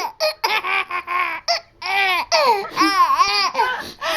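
Small boy laughing hysterically, first in quick short bursts, then about halfway through in long, high-pitched, swooping cries. He is laughing so hard that he is crying.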